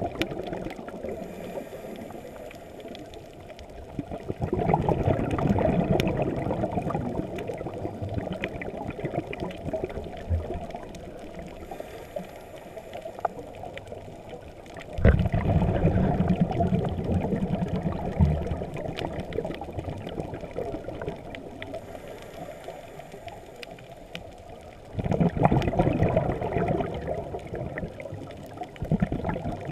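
Muffled underwater sound of water moving around a GoPro camera held beneath the surface: a low rushing that swells three times, about ten seconds apart.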